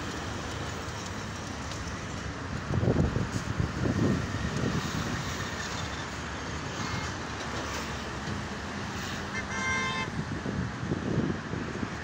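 Steady traffic noise from a multi-lane highway, tyres and engines of cars, auto-rickshaws and motorbikes, with a couple of louder low rushes about three and four seconds in. A vehicle horn toots briefly about ten seconds in.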